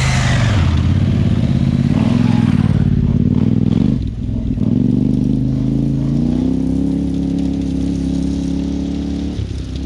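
Parallel-twin adventure motorcycle engine running under way, its revs rising and falling, with a brief drop about four seconds in before it settles at a steady, slightly higher pitch.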